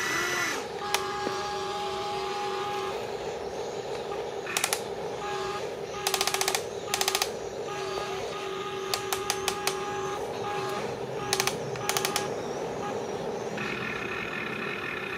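Small electric motors and gears of radio-controlled construction models whining steadily, with several short bursts of rapid clicking. A higher steady whine starts near the end.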